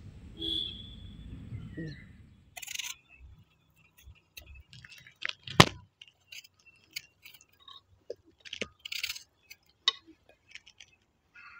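Small knife cutting tomatoes and pieces dropping into an earthenware bowl: scattered light clicks and knocks, with one sharp click about halfway through. A low rumble of outdoor noise fills the first couple of seconds.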